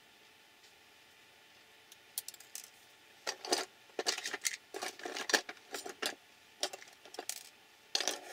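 Small metal hand tools clinking and clattering in a plastic tool tray as a hand rummages through it. It is a run of short knocks and rattles that starts about two seconds in.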